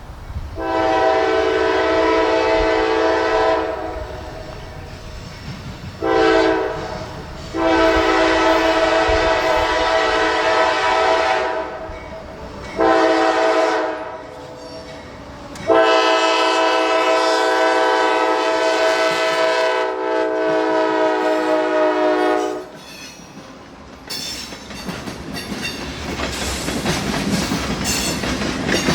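CSX freight locomotive's air horn sounding five blasts: long, short, long, short, then a final long blast of about seven seconds. About two seconds after the horn stops, the rumble and clickety-clack of the fast freight passing starts and grows louder.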